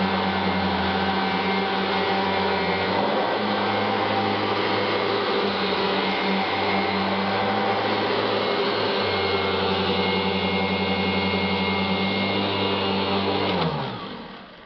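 Kirby G4 upright vacuum cleaner running steadily with a constant motor hum. Near the end it is switched off, and the motor winds down with a falling pitch until it goes quiet.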